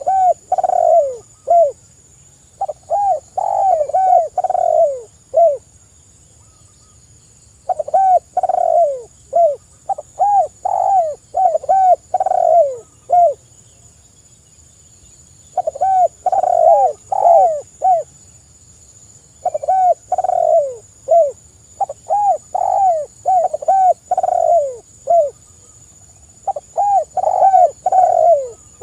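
Spotted dove cooing in repeated bouts, each a run of short coos that drop in pitch, with pauses of about two seconds between bouts. A faint steady high tone runs behind.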